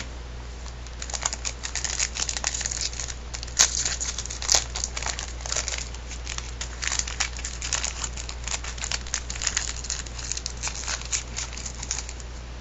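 Baseball card pack wrapper being crinkled and torn open by hand, many small crackles with two sharper snaps about three and a half and four and a half seconds in.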